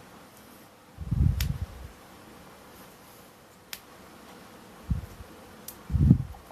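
Handling of a smartphone and its packaging: a few short, low bumps, the longest about a second in and the loudest near the end, with three light, sharp clicks in between.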